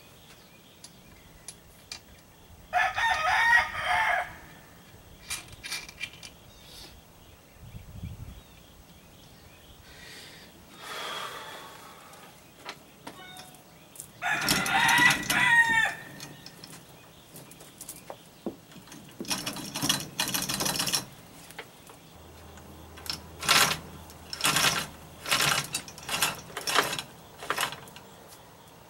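A rooster crowing, one long call about three seconds in and another around fifteen seconds, with a fainter call near eleven seconds. A noisy burst follows around twenty seconds, then a run of sharp metallic clicks and knocks from hands working at the outboard's transom mount.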